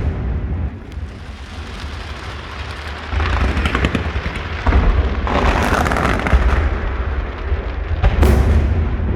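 Aerial fireworks display: a continuous low rumble of shell bursts, with dense crackling effects a few seconds in and again around the middle, and a sharp bang near the end.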